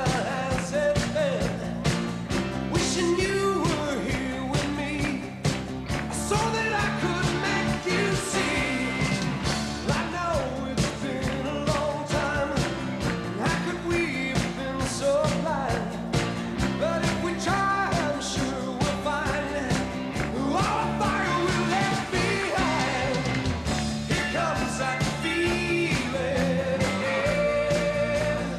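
Rock band playing live: a male lead vocal over electric bass, electric guitar, drums and keyboards.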